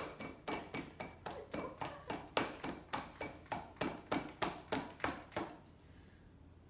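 Rapid hand slaps on a towel-wrapped wine bottle, about four a second, stopping about five and a half seconds in: the towel slap method of driving the cork out of a bottle with no corkscrew.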